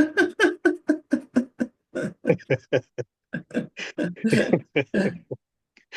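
A person's voice in quick, choppy bursts, about five or six a second, stopping about five seconds in.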